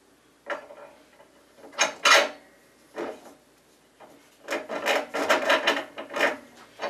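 Clear plastic bag crinkling and rustling as it is handled, in a few short bursts and then a longer stretch from about four and a half seconds in.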